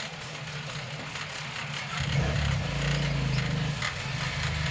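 A motor running with a low, steady hum that gets louder about two seconds in, with a few faint ticks over it.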